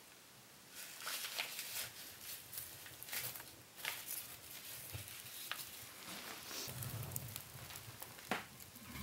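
Freshly lit kindling fire crackling in a wood stove's firebox, with irregular sharp snaps starting about a second in as the flames catch.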